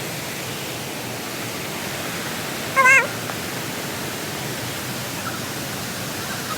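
Steady rushing of a waterfall. About three seconds in comes one short, loud call with a wavering pitch.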